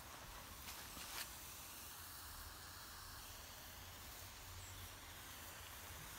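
Red smoke bomb burning with a faint, steady hiss. Two light clicks come about a second in.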